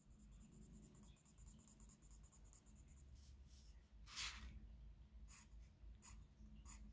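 Faint strokes of a colour pencil on sketch paper: a few short strokes in the second half, the loudest about four seconds in, over near-silent room tone.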